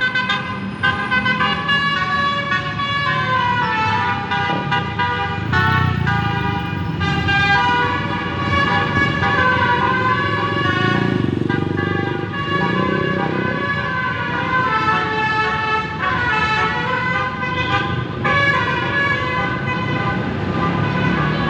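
An Indonesian bus's basuri telolet horn, a multi-trumpet horn, playing a melody of held, stepping chords without a break, over a low rumble.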